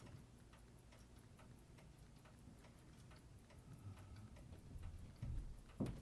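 Mechanical Seiko automatic watch movement ticking faintly and quickly, several even ticks a second, just regulated on the balance and running in beat. A few dull low knocks near the end.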